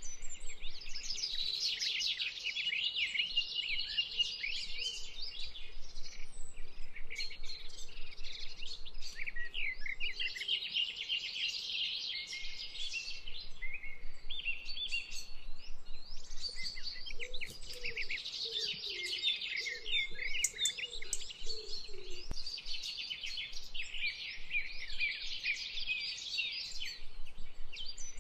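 Many small birds chirping and twittering in a dense, continuous chorus, with a lower warbling call for a few seconds past the middle.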